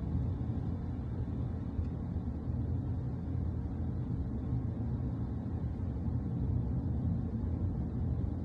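Steady low rumble of a car driving, heard from inside the cabin: engine and road noise with no distinct events.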